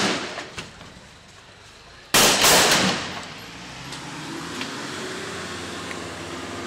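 Two gunshots, one right at the start and a louder one about two seconds in, each ringing out briefly off the street. After them a motor vehicle's engine runs steadily.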